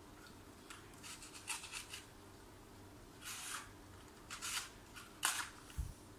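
A paper-and-card model pistol being handled: a few short bursts of paper rustling and scraping, with a dull low thump near the end.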